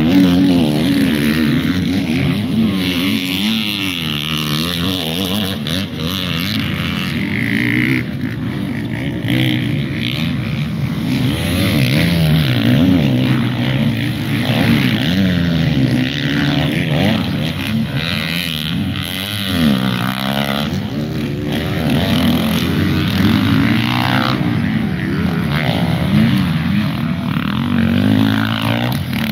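Several motocross dirt bikes racing, their engines revving up and down through the gears, the rising and falling pitches of more than one bike overlapping.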